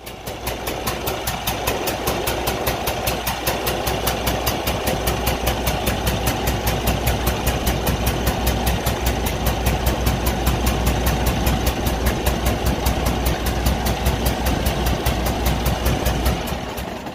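Cummins ISX15 diesel engine running with a rapid, even pulsing, the unusual sound of compression leaking past a broken cylinder head gasket into the crankcase and coolant system on every cycle.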